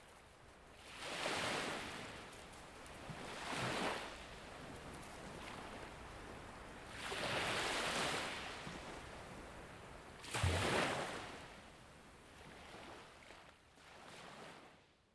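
Ocean waves breaking on a shore: several swells of surf that rise and fall a few seconds apart, fading out near the end.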